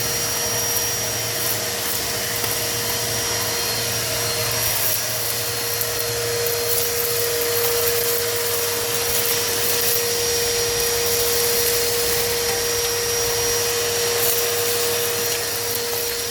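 Electric vacuum cleaner running steadily with a constant motor whine, sucking up dust, droppings and feathers from a pigeon loft floor, with faint light ticks of debris going up the nozzle.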